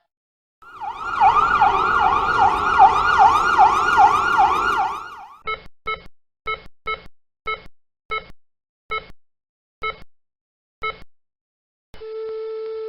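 An emergency-vehicle siren yelps in quick rising-and-falling sweeps, about three a second, over road noise, then stops. A heart monitor follows with short beeps that come slower and slower. Then a single continuous flatline tone sounds, the sign that the heart has stopped.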